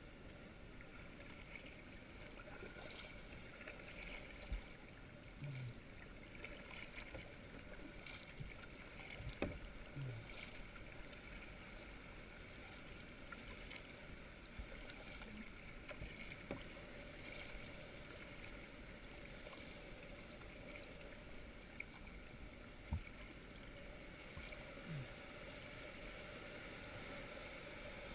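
Kayak being paddled through calm water: quiet paddle strokes and water lapping at the hull, with a few sharp knocks several seconds apart.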